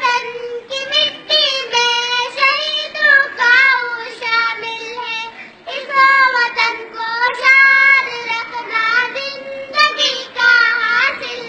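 Children singing a Pakistani national song, a high melody in long, wavering notes.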